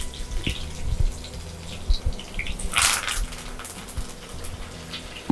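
Hot oil sizzling and crackling in a small steel pan for a sambar tadka, with shallots frying and scattered pops. About three seconds in the sizzle flares up loudly and briefly as curry leaves, dried red chillies and okra hit the oil.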